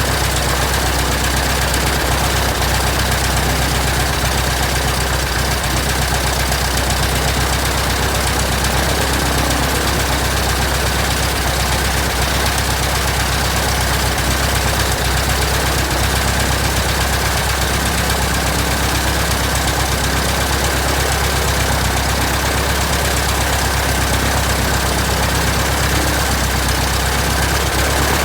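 A 1967 Citabria's air-cooled flat-four aircraft engine runs steadily at low, even speed, turning its propeller, during its first run after restoration.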